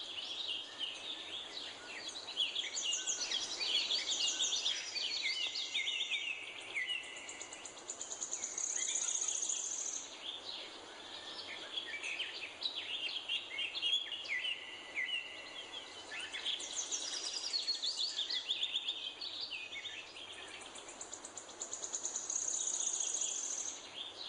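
Several songbirds singing at once, a dense mix of quick chirps and whistled notes, with high rapid trills that swell up about eight seconds in and again near the end.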